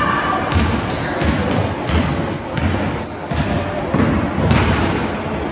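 Basketball being dribbled on a hardwood gym floor, bouncing repeatedly, with short high squeaks of sneakers on the court.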